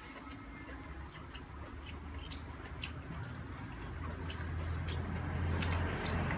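A person chewing and eating hog-plum salad by hand, with many short scattered clicks and smacks. A low hum rises and grows louder in the second half.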